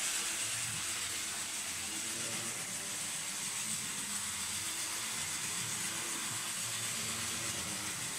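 1950s Jouef 0-4-0 tank model locomotive running on HO track: its old motor and gearing give a steady, even run noise with a hiss over it, a noisy runner.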